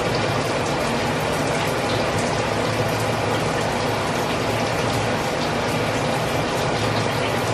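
Steady rush of water running in a bathroom, with a faint low hum underneath.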